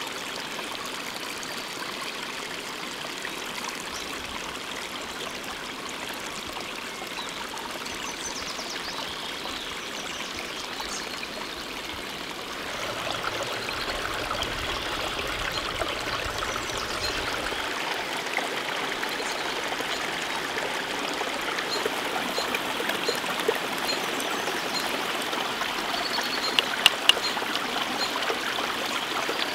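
Shallow stream trickling over mossy rocks, a steady rush of water that grows louder about halfway through. A few sharp clicks near the end.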